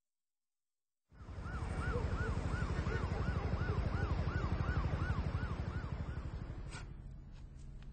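A helicopter's rotor thudding in a fast low pulse, starting abruptly about a second in. Over it an emergency siren yelps, sweeping up and down about three times a second, then fades out about six seconds in.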